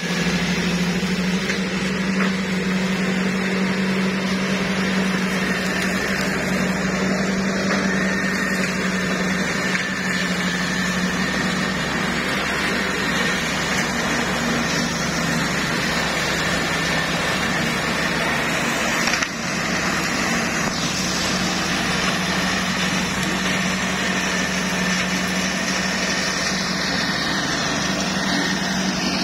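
Engine-driven flail mower running steadily, a constant low engine note under the whirring of its spinning flail shaft. A single short knock about two-thirds of the way through.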